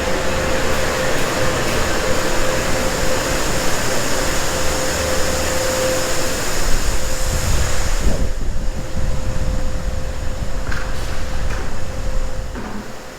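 Machinery running steadily, a constant whine over a broad rumble and hiss; the higher hiss drops away about eight seconds in.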